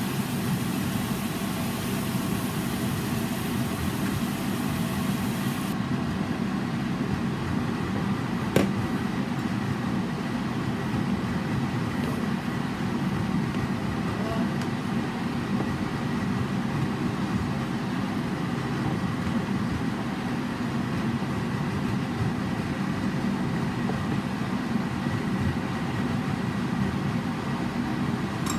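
Egg tofu and minced pork braising in a pan over a gas burner: a steady low rumble of flame and simmering sauce, with one sharp click about eight and a half seconds in.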